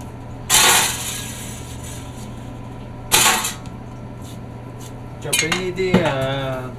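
Two sharp chops of a Chinese cleaver cutting lemons down onto the kitchen counter, about two and a half seconds apart, each with a short ring after it.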